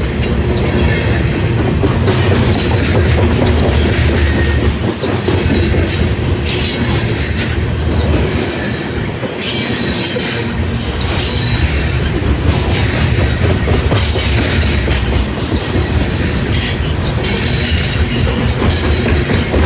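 Loaded grain train's cars rolling past at steady speed: a constant low rumble with clickety-clack of wheels over the rail joints and short bursts of wheel squeal every second or two.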